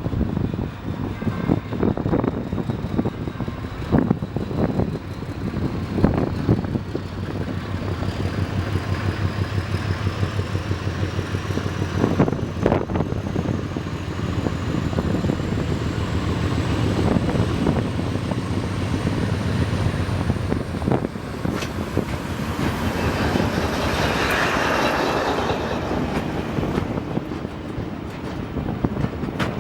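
Diesel locomotive hauling a train: a steady engine drone with wheels knocking over rail joints. A faint high whine climbs slowly in pitch through most of the stretch, then stops about two-thirds of the way in.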